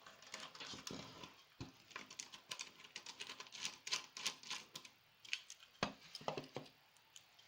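A small screw being driven into the aluminium enclosure of a soldering station with a small screwdriver: irregular light clicks and scrapes of metal on metal, with a couple of sharper knocks.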